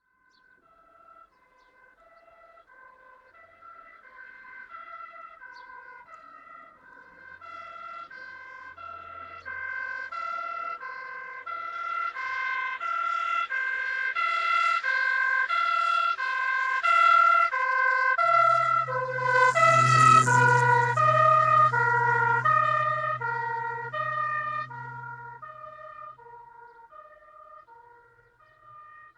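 German police two-tone siren (Martinshorn) alternating between a high and a low note about every three-quarters of a second. It grows louder as the vehicle approaches and passes about twenty seconds in with a brief rush of road noise and a drop in pitch, then fades away.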